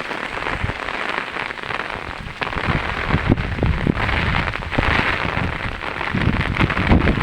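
Heavy rain falling: a steady hiss thick with the patter of drops, with a low rumble coming in from about two and a half seconds in.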